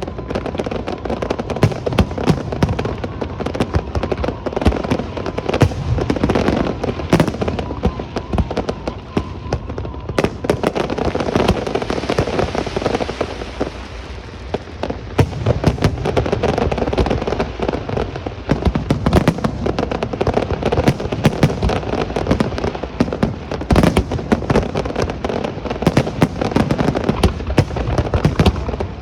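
Fireworks display: a dense, continuous barrage of bangs and crackling from aerial fireworks, easing a little about halfway through before building again.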